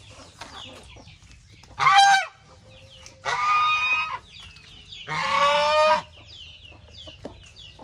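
White domestic geese honking three times, loud harsh calls about half a second to a second long, with faint high chirping from other poultry underneath.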